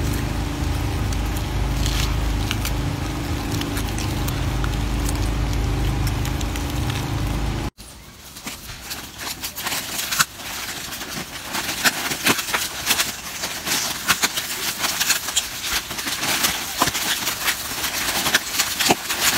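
A steady low rumble, then, after a cut, dense crackling and crinkling of plastic snack wrappers as monkeys grab and tear at the packets, growing busier toward the end.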